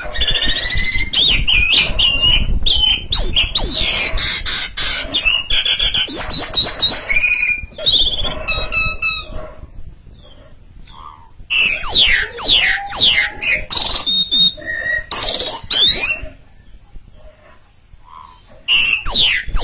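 Asian pied starling (pied myna) singing loudly and at length: fast strings of sharp whistles sweeping up and down, mixed with harsh chattering notes. It sings in long runs broken by two short pauses, with a final brief outburst near the end.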